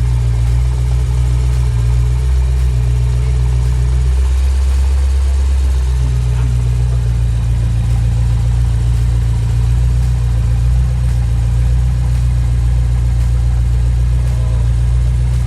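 2012 BMW M6's V8 engine idling steadily as it is test-run after an engine repair, with a brief shift in its low drone about four seconds in.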